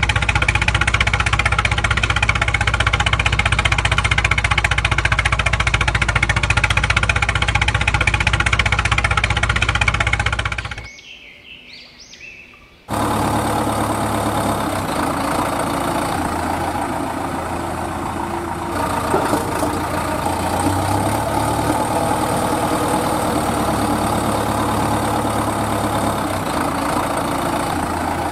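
Vehicle engine running steadily at idle. It drops away for about two seconds around the middle, then resumes with a slightly different tone.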